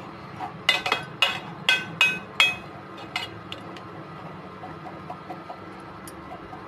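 Metal spoon clinking and scraping against a stainless steel saucepan while stirring sugar that is melting to caramelize. About six sharp, ringing clinks come in the first two and a half seconds, then only faint ticks as the stirring goes on.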